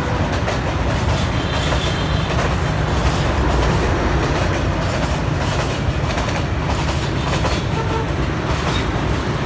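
A passenger train running past on the track beside the road, mixed with steady street traffic of motorbikes and a city bus.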